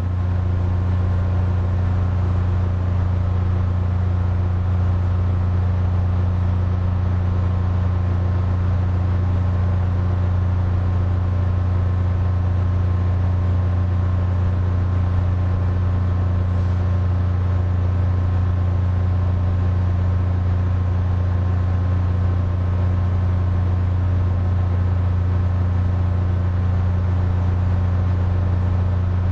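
Air conditioner running with a steady low hum and a faint, higher steady tone above it, unchanging throughout.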